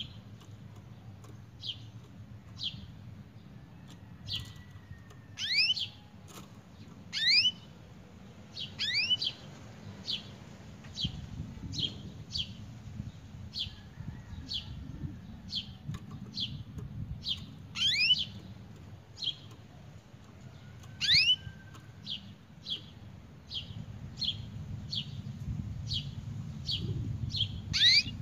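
Canary singing: short high chirps repeated about every 0.7 seconds, broken several times by louder rising whistled notes.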